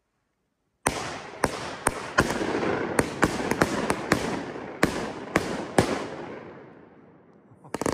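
A consumer fireworks cake firing: about a dozen sharp shots in quick, uneven succession, starting about a second in, over a dense wash of sound that dies away. Two more bangs come close together near the end.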